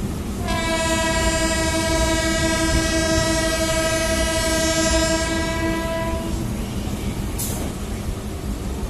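Electric multiple-unit train horn sounding one long, steady blast of about five and a half seconds, over the steady rumble of the moving train.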